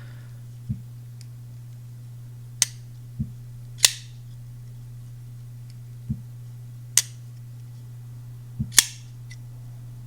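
Folding pocket knives being opened and closed by hand: about eight short, sharp clicks spaced a second or two apart, duller knocks alternating with brighter snaps as the blade swings and the lock engages. A steady low hum runs underneath.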